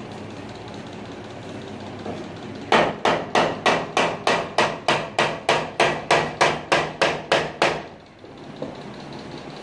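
A hammer or mallet tapping a large floor tile during tile laying: a fast, even run of about seventeen sharp knocks, roughly three a second, starting about three seconds in and stopping after some five seconds.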